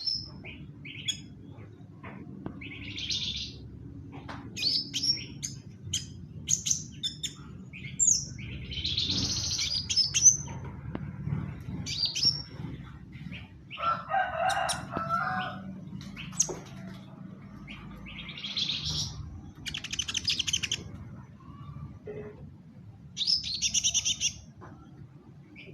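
A songbird, kept as a 'koning' in Indonesian songbird keeping, sings in short, varied bursts of high chirps, whistles and rattling trills, with a lower warbling phrase midway. A faint steady low hum runs underneath.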